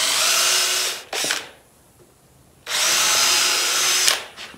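Cordless drill boring pilot holes into the ends of framing boards to keep them from splitting when nailed. It runs steadily until about a second in, gives a short blip, pauses, then runs again for about a second and a half near the end.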